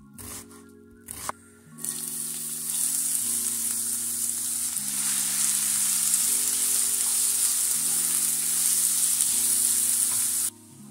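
Diced onions sizzling steadily as they fry in oil in a pan, stirred with a wooden spatula; the sizzling starts about two seconds in and cuts off sharply near the end. Before it, a few knife strokes through an onion on a wooden board, with soft background music throughout.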